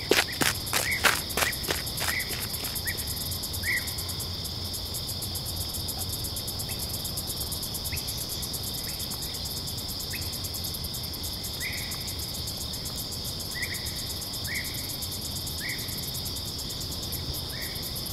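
Night ambience of crickets: a steady high trill throughout, with short chirps every second or so. At the start, a run of quick thuds fades out within about two seconds.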